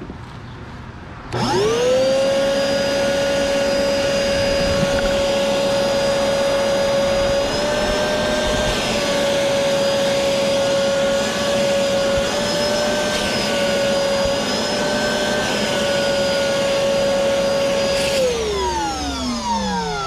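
Ridgid portable wet/dry shop vacuum, fitted with its narrow detailing-kit hose, switched on and running with a steady high motor whine, its pitch shifting slightly a few times partway through. Near the end it is switched off and winds down with a falling pitch.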